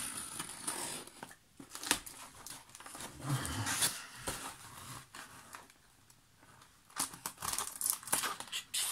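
A taped cardboard box being opened: a pointed tool scratches and tears through the packing tape along the box's edge, with cardboard rustling and sliding. The noise comes in spells, with a quieter gap in the middle and a run of sharp scratching near the end.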